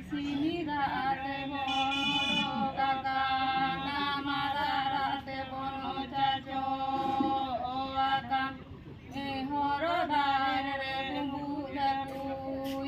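Women singing a song in long, drawn-out phrases, with short breaks about five and eight seconds in.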